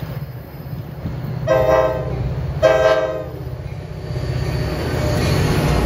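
NJ Transit F40PH-2CAT diesel locomotive sounding its horn in two short blasts, about a second and a half in and again about a second later, the second the louder. Under it runs the low rumble of the approaching train, growing louder toward the end.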